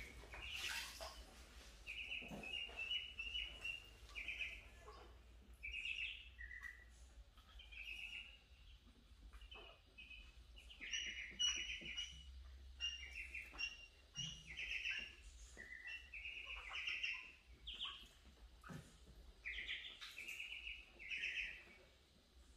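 A flock of ducklings peeping: short, high chirps in quick clusters, several birds calling over one another.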